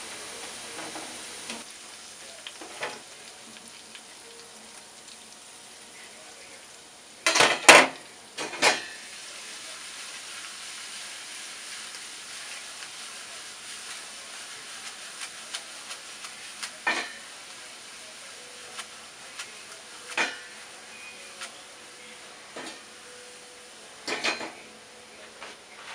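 Chopped garlic sizzling steadily in oil in a frying pan, the aglio olio base. Utensils clatter against the pan several times, a quick cluster about a third of the way in and single knocks later, as parsley is added and tossed.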